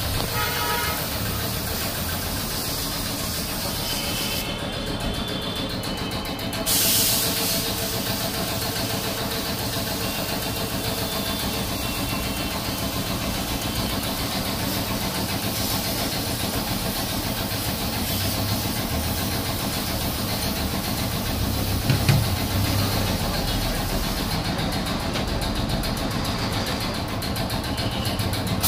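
Steady hiss of compressed air from a spray gun on an air hose, over a continuous engine-like hum. The hiss drops out for about two seconds around four seconds in, comes back with a louder rush, and drops out again near the end. There is a short low thump about 22 seconds in.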